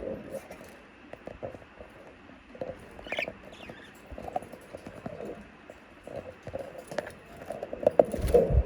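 Budgerigars moving about: a run of small taps and scratches, with one short chirp about three seconds in and a louder knock with a low thud near the end.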